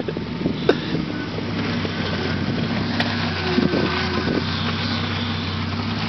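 Jeep Cherokee engine running steadily close by, a low, even drone.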